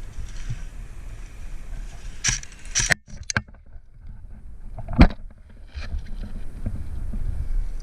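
Low rumbling handling noise, with rattling and a few sharp clicks around two to three seconds in and one loud sharp crack about five seconds in.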